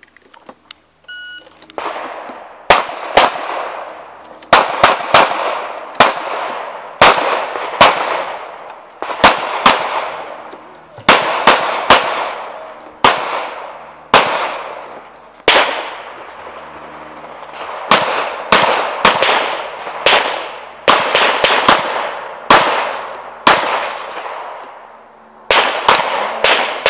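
A shot-timer beep about a second in, then a handgun firing rapid pairs and short strings of shots, each with a trailing echo, with two brief pauses between strings.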